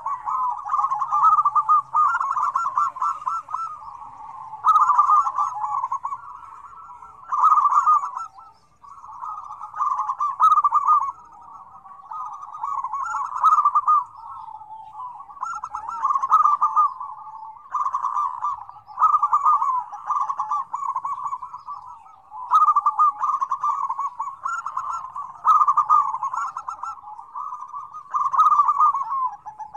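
Several zebra doves (perkutut) cooing over one another in a busy chorus. Each call is a rapid, rattling series of coos, and new calls start every two to three seconds, so there is hardly a gap.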